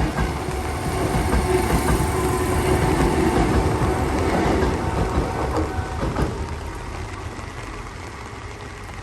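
Hankyu electric train passing over a level crossing, its wheels clattering over the rail joints. It stays loud for the first five seconds or so, then fades as it moves away.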